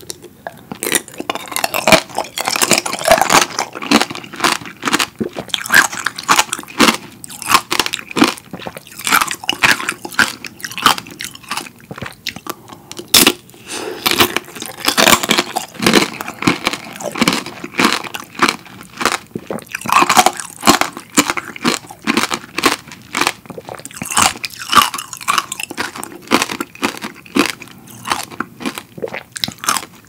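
Close-miked crunching and chewing of strawberry tanghulu: the hard candied-sugar shell cracking between the teeth in many sharp crisp crunches, one after another, with chewing in between.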